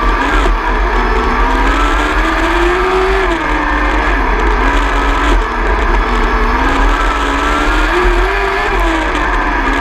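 600cc micro sprint car engine heard from onboard, running hard on a lap: its pitch climbs steadily under throttle and drops quickly as the driver lifts for a corner, twice, about three seconds in and again near the end.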